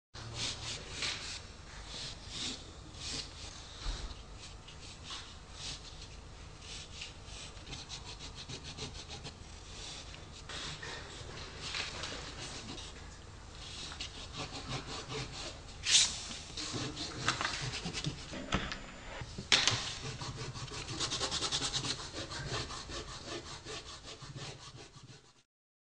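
Pencil scratching on paper in many short, quick strokes, with two sharper, louder strokes in the second half and a denser stretch of rasping scribbles near the end.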